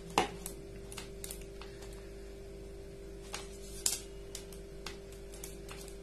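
Scattered light clicks and ticks of wires and a small plastic switch being handled, at irregular times, over a steady faint hum.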